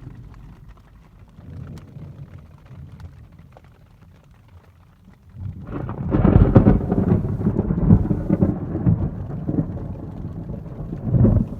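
Rain falling in a thunderstorm, then about halfway through a loud peal of thunder breaks in and rolls on with rumbling swells.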